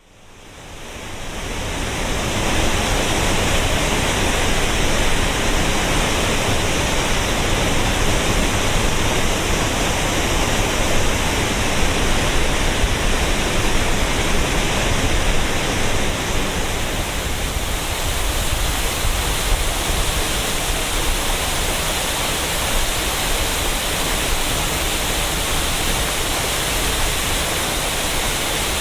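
Waterfall pouring, a steady dense rush of water that fades in over the first two seconds and becomes slightly softer about eighteen seconds in.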